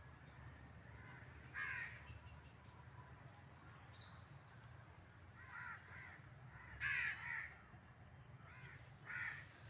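Birds calling: about five short calls spread through, the loudest pair around seven seconds in, over a faint steady low hum.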